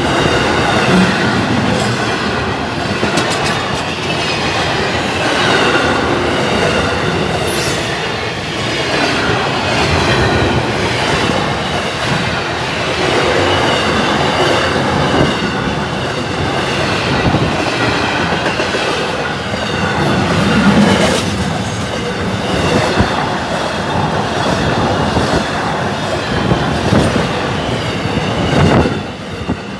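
Container freight train wagons rolling past close by: a loud, steady rumble and clatter of steel wheels on the rails.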